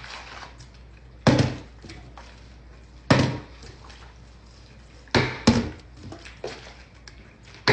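Plastic bottle crackling as it is squeezed: four short, sharp crackles, the last two close together.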